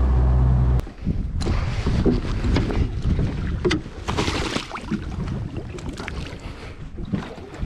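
A boat motor running steadily, then cut off less than a second in. After that, choppy lake water slaps against the small aluminium boat's hull with a few knocks, and a drift sock splashes into the water about four seconds in.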